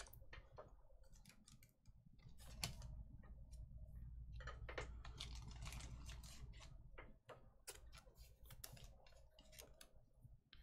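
Faint, irregular light clicks and taps over a low steady hum, otherwise near silence.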